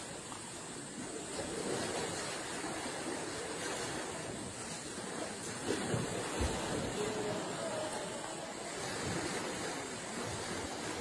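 Pool water churning and splashing as elephants swim and roll in it, with a heavier splash about six seconds in.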